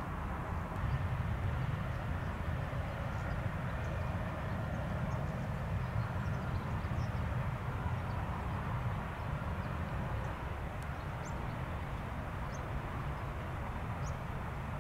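Steady low rumble of distant vehicle noise, even throughout, with a few faint bird chirps over it.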